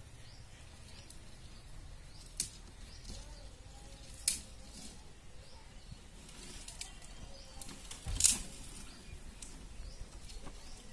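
Dry brushwood twigs rustling and snapping as they are pulled from a pile and broken off by hand for firewood. There are three sharp cracks, the loudest about eight seconds in.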